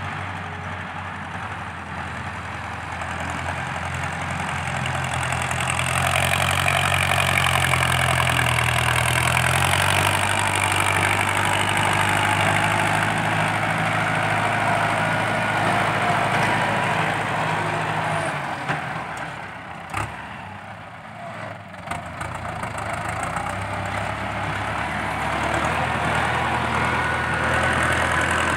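Ford 6640 tractor's diesel engine working under load as it pushes soil with a front blade, through an open straight exhaust stack. It gets louder a few seconds in, drops back around two-thirds of the way through, then builds again.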